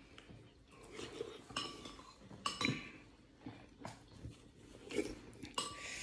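Scattered light clinks and taps of cutlery and dishes, a few of them ringing briefly.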